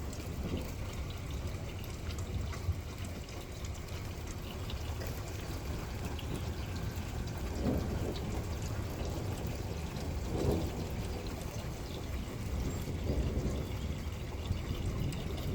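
Steady rain from a severe thunderstorm, with water pouring and trickling and scattered drips, and a couple of louder splashing gushes partway through.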